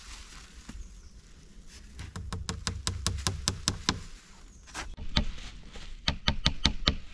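Small hammer striking as a plastic sheet is fixed to a tree trunk. A quick run of about a dozen light taps comes first, then a single blow, then another run of about six taps near the end.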